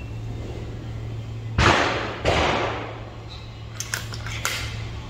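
FX Crown MK2 .22 PCP air rifle shooting: a sharp shot about a second and a half in, with a second loud report about two-thirds of a second later. A few lighter clicks of the rifle's action come near the end.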